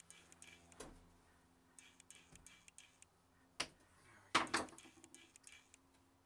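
Gloved hands working at the plastic caps of a fresh bottle of automatic transmission fluid: a run of light clicks and ticks, with a sharp knock about three and a half seconds in and a louder clatter just after four seconds.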